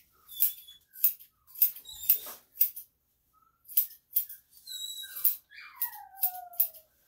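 Dog nail clippers snipping a small dog's toenails: a string of sharp clicks, about two a second. A dog whines in short squeaks, with one long falling whine near the end.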